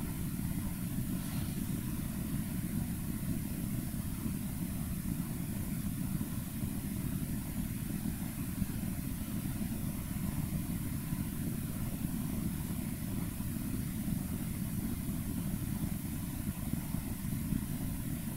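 Steady low background rumble with a faint hiss, unchanging throughout, with no distinct sound events.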